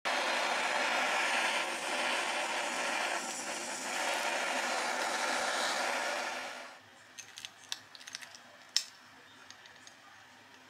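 Handheld kitchen blowtorch hissing steadily as its flame caramelizes the sugar on a crème brûlée. The hiss cuts off about seven seconds in, followed by a few sharp light clicks and taps.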